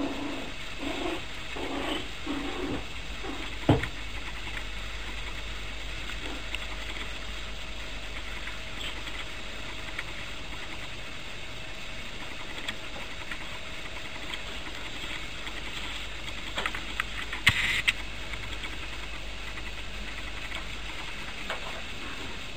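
Puppies at play: a run of short low puppy growls in the first three seconds, then a sharp knock about four seconds in. After that only a faint steady background, broken by a few clicks and a brief high squeal about three-quarters of the way through.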